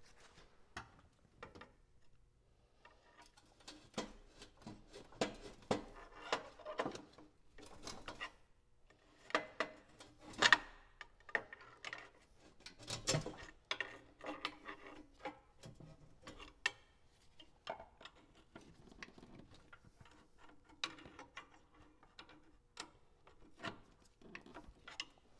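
Scattered light metallic clicks and clinks of engine-hoist chains and hardware being handled around a hoisted engine, irregular rather than rhythmic, with a sharper knock about ten seconds in and another cluster around thirteen seconds in.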